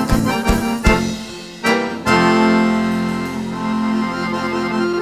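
Live band of accordion, guitars, bass and drums ending a rancheira. There are a few accented rhythmic hits, then about two seconds in a final chord is held and slowly fades.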